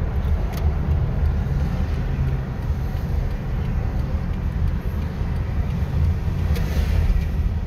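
Steady low rumble of a car driving in traffic, heard from inside the cabin: engine and tyre noise with no distinct events.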